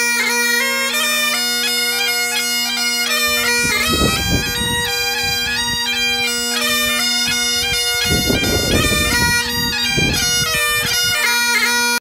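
Two Great Highland bagpipes playing a tune together: steady drones under the chanter melody. A low rumbling noise rises under the pipes about four seconds in and again around eight seconds.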